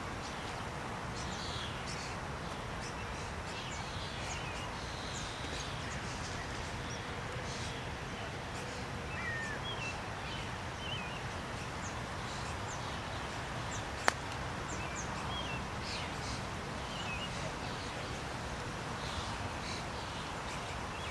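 Steady outdoor background noise with small birds chirping now and then, and a single sharp click about fourteen seconds in: a putter striking a golf ball.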